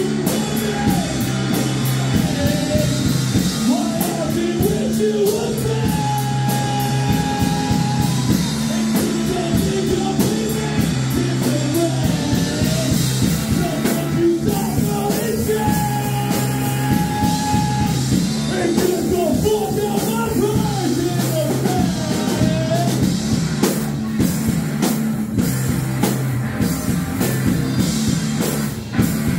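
Rock band playing live: electric guitar, bass guitar and drum kit, with a man singing over them. The vocal line holds two long notes.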